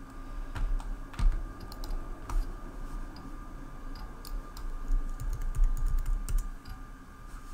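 Computer keyboard typing: a few scattered keystrokes, then a quick run of keys about five seconds in.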